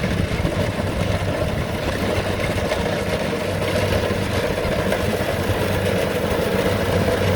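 Rice combine harvester's engine running steadily at an even speed, a constant low hum with a band of machine noise above it.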